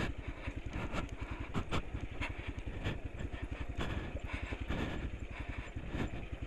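Motorcycle engine chugging at low revs, a fast, even beat, as the bike crawls up a steep, wet, rocky track. Scattered knocks and clatters come in among the beats.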